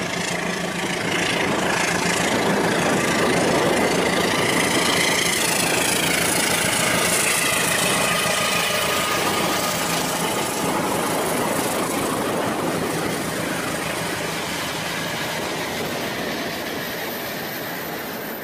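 Rail King toy train running along its plastic track, a steady mechanical running sound that is loudest about four seconds in and then fades slowly as the train moves away.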